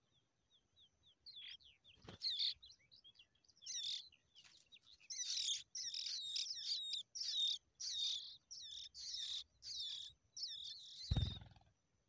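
Skylark nestlings begging for food as a parent feeds them: high-pitched cheeping, faint at first, then loud repeated chirps two or three a second. A dull thump about two seconds in, and a louder low thump near the end.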